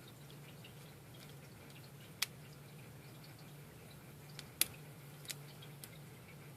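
Faint, sharp metallic clicks and ticks of a lock pick and tension wrench working the spool pins of a five-pin Abus 55/60 brass padlock. A few louder clicks come about two, four and a half and five seconds in, over a low steady hum.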